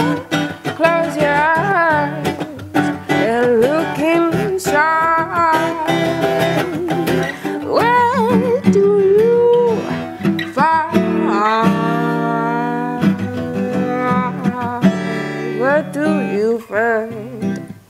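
Improvised soul singing by a woman, sung without words in sliding runs with vibrato, over a strummed acoustic guitar.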